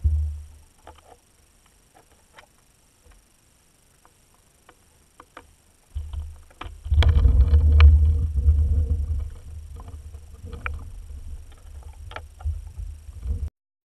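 Underwater audio picked up through a camera housing: low rumbling water movement with scattered clicks and knocks. It is faint at first, swells into a loud, sustained rumble with a cluster of clicks about six seconds in, then cuts off suddenly near the end.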